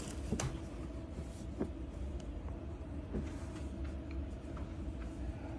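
Steady low background hum with a faint steady tone, and a few light rustles and ticks as folded quilting fabric is handled.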